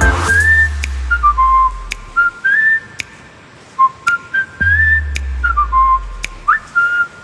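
Background music led by a whistled melody in short repeated phrases, over sparse clicking percussion and two deep bass swells.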